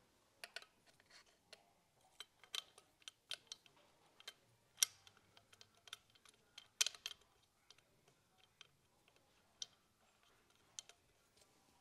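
Faint, irregular clicks and taps of an air rifle's valve parts being handled and screwed back together by hand after a new valve needle and spring are fitted. The two loudest clicks come about five and seven seconds in.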